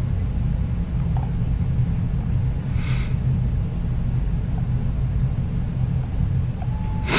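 Steady low background rumble, with a brief faint hiss about three seconds in and a sharp click at the very end.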